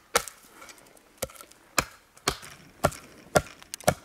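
Bush knife chopping into a dry, dead spruce pole to cut a point on it: about eight sharp strokes, roughly two a second, the last two quickly one after the other.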